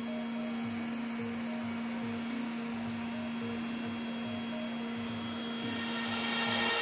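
Five-axis CNC router's electric spindle running with a steady hum. Near the end it gets louder and fuller as the cutter starts into the foam block.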